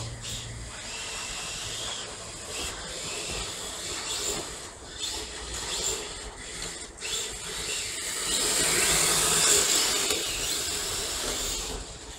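Yokomo Drift Master RC drift cars sliding on a polished stone floor: a steady hiss of hard drift tyres skating over the smooth surface, louder for a few seconds in the second half as a car passes close.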